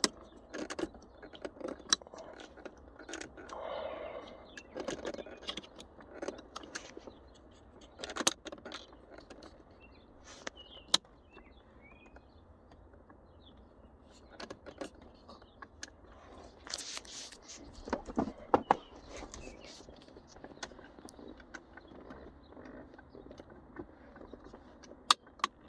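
Plastic shifter trim in a 2013 Chevrolet Sonic being worked and pressed by hand to clip it into place: scattered sharp clicks, taps and scraping, with a busier run of clicks in the second half.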